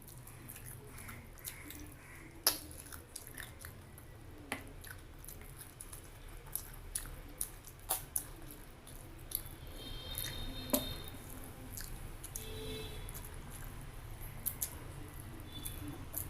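Close-up chewing and wet mouth sounds of a person eating mouthfuls of chicken curry and rice, with scattered sharp clicks and smacks.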